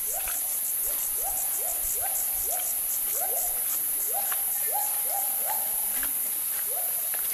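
Siamang gibbons calling: a long series of short whoops, each rising sharply and then levelling off, about two a second, with a short break near the end. A steady high hiss runs underneath.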